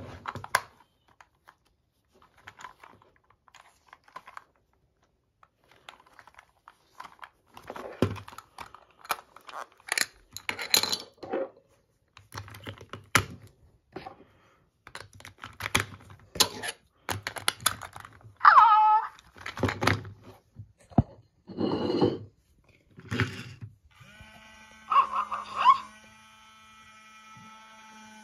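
Handling of a Hatchimals plush toy: scattered clicks and rattles of its plastic battery compartment and batteries. From about 24 s in, the toy's electronics switch on, with a steady low hum and several held electronic tones.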